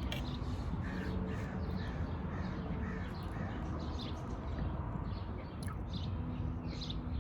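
Birds calling outdoors: a run of short repeated calls about twice a second in the first few seconds, then scattered higher chirps, over a faint steady low hum.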